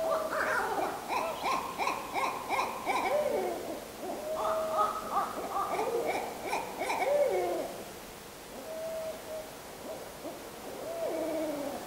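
Owls hooting in the night woods: bouts of quick hoots, several ending in a falling slur, repeating every few seconds and growing fainter in the last few seconds.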